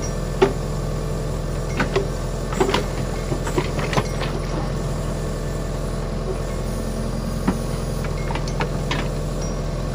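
John Deere 6300 tractor's four-cylinder diesel engine running steadily while it powers a rear-mounted backhoe, with scattered sharp clanks and knocks from the backhoe's bucket and linkage as it swings and digs, more of them in the first few seconds.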